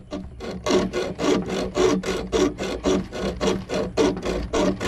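Hacksaw cutting a slot into the head of a seized carburetor bolt, in quick regular strokes of about four a second. The bolt head is being split so a screwdriver can turn it out.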